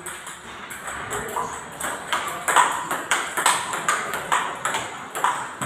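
Table tennis rally: the ball clicks off the rackets and bounces on the Yinhe table in quick, slightly uneven succession, about two to three clicks a second.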